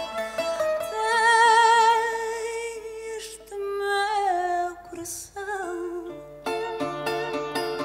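A woman singing live, holding long notes with a wide vibrato, accompanied by acoustic guitar. From about six and a half seconds in, the guitar takes over with a run of plucked notes.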